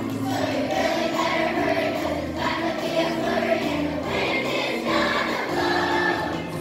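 Children's choir of fourth graders singing a Christmas song together, holding sustained notes through each phrase.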